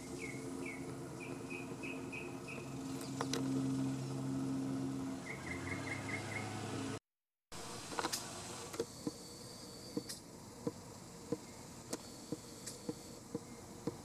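Outdoor birdsong and insects. A bird repeats short, clear high notes in quick series, twice, over a low steady hum. After a brief dropout, a steady high insect drone comes and goes, with soft ticks about once or twice a second.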